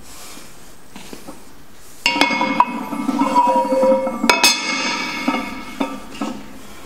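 Cast-iron weight plates being loaded onto a barbell sleeve. About two seconds in, metal clanks against metal, with ringing tones and scraping that run for roughly four seconds before dying away.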